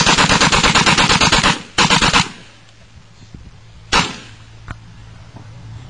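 Machine gun firing fully automatic: a long rapid burst that stops about a second and a half in, a short second burst, then a single shot about four seconds in.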